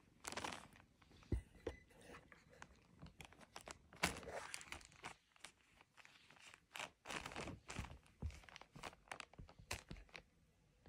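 Irregular rustling and crinkling in short bursts, with a few soft knocks.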